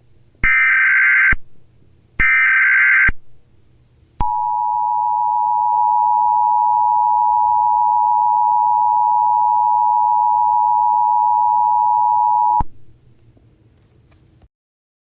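Emergency Alert System sequence: two roughly one-second SAME header data bursts a second apart, then the steady two-tone EAS attention signal, held for about eight seconds before cutting off.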